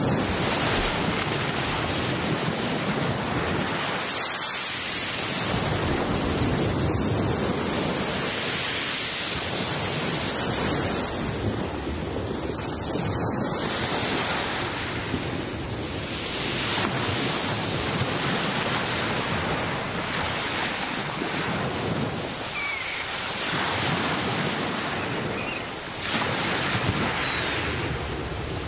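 Black Sea surf breaking and washing over a pebble beach, a steady rush that swells and fades every few seconds.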